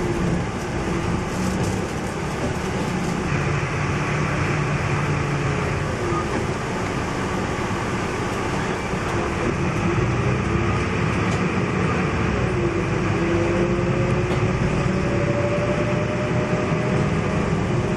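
MAN NL222 city bus heard from the front of its cabin while driving: steady diesel engine and road noise, with a whine that rises in pitch over the last few seconds.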